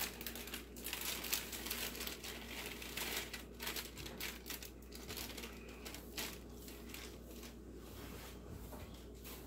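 Plastic cake-mix bag crinkling as the dry mix is shaken out of it into a mixing bowl, in irregular crackles that thin out near the end.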